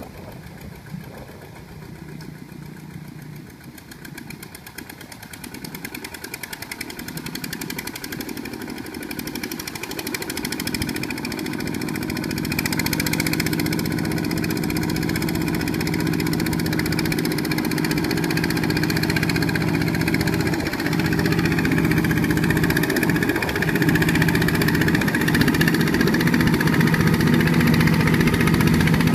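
Kubota RT120 single-cylinder diesel engine on a two-wheel walking tractor running steadily while its cage wheels push through deep paddy mud, growing louder as the tractor comes closer.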